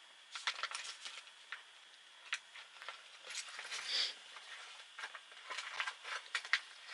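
Small plastic sewing-machine presser feet being handled and packed back into an accessory pouch: scattered light clicks and soft rustling.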